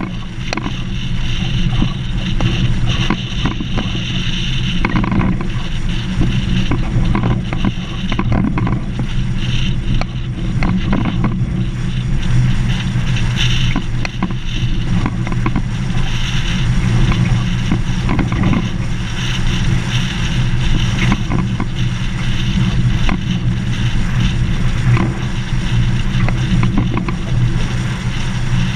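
A vehicle driving along a gravel dirt road: a steady engine drone under tyre noise, with frequent small clicks and rattles from the gravel.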